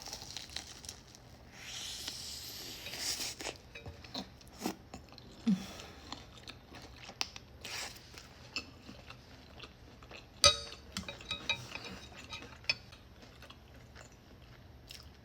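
Close-up eating sounds: chewing and biting on buldak noodles, with scattered small clicks and one sharp clack about ten seconds in, followed by a quick run of light ticks, typical of utensils against a bowl.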